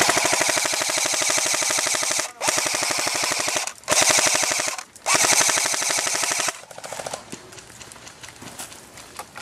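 Airsoft rifle firing on full auto: four long bursts of rapid, evenly spaced shots with brief pauses between them, the first about two seconds long, ending a little over six seconds in.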